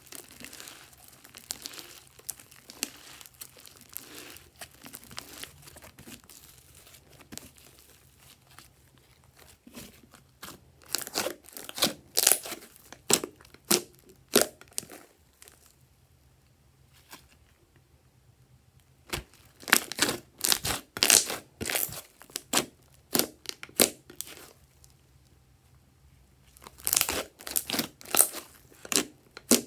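Pink slime with clay mixed in being kneaded and squeezed by hand: soft sticky crackling at first, then three runs of sharp pops and snaps as the slime is pressed and pulled.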